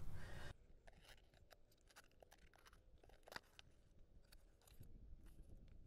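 Near silence, with faint scattered crackles and ticks from a cardboard shipping box being handled; one tick a little past the middle is slightly louder.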